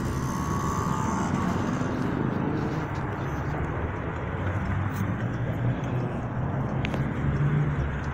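Steady city road traffic: a low rumble of cars running along the street.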